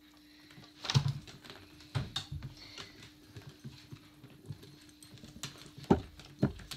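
Animatronic jumping-spider Halloween prop springing up, with a loud clack about a second in, followed by scattered lighter clicks and knocks and two sharper knocks near the end.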